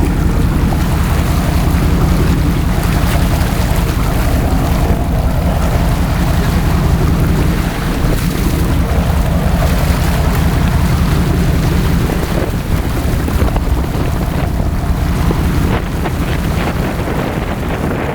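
Wind buffeting the microphone on an open fishing boat, a steady loud rumble with water noise underneath.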